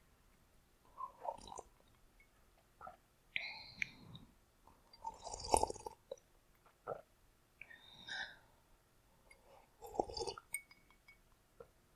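A person drinking water: a string of short sips, gulps and swallows at irregular intervals, the loudest gulp about five and a half seconds in.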